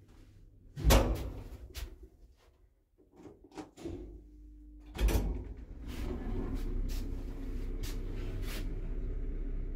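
1984 ZREMB "Osiedlowy" passenger lift: a door bang about a second in, several sharp clicks and a short hum, then a loud clunk about five seconds in. After that the lift runs with a steady low rumble and scattered clicks.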